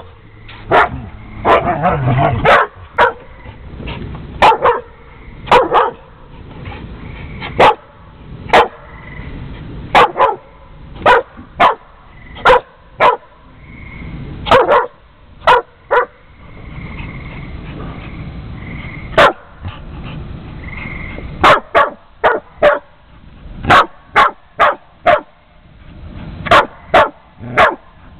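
Pit bull barking repeatedly at a husky in short, sharp barks, irregularly spaced and often in quick runs of two or three, with brief high whines between barks in the middle stretch.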